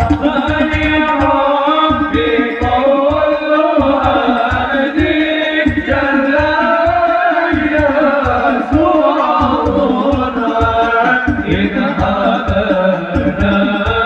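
Sholawat, Arabic devotional singing in praise of the Prophet, sung over a loud PA with a steady beat of hand drums, about three to four strokes a second.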